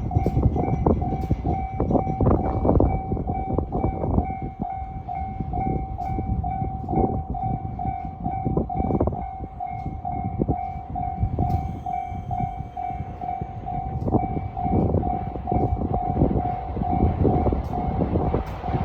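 Japanese level-crossing alarm ringing a steady, repeating electronic tone, while a JR Kyushu 821 series electric train passes with a rumble and irregular wheel knocks.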